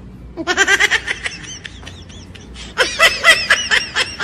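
A woman laughing hard in two bursts of quick, high-pitched laughs, with a pause of about a second and a half between them.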